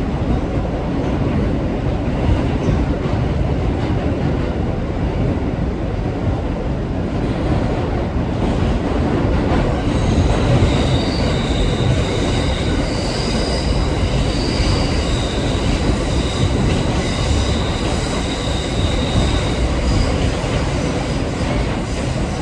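New York City 6 subway train running, a steady loud rumble with the clatter of wheels on the track. From about ten seconds in, high-pitched wheel squeal rises and falls for about ten seconds, as steel wheels grind on the rails, typical of a curve.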